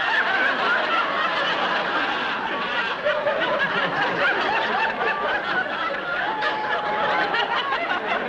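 Studio audience laughing, a long unbroken wave of laughter from many people at once.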